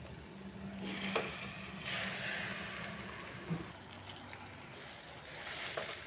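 Food frying and sizzling in a frying pan on a gas stove, with a few sharp clicks of utensils against the pan.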